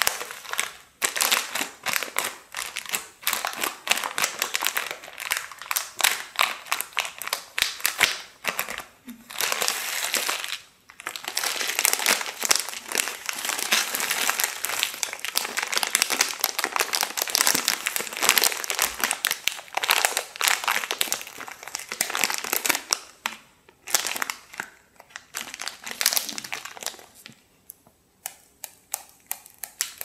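A sealed packet of Hảo Hảo instant noodles being squeezed and crushed by hand: the plastic wrapper crinkles and the dry noodle block inside crackles and breaks up. It comes in long bursts with short pauses and dies down to a few faint clicks near the end.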